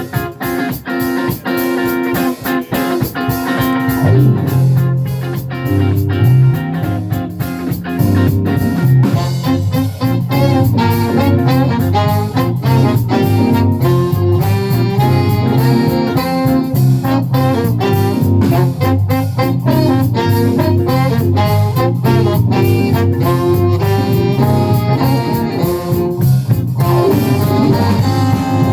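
Live band playing a jazz-flavoured song on drum kit, bass, guitar and horns; the drums start the beat and the low bass notes come in about four seconds in.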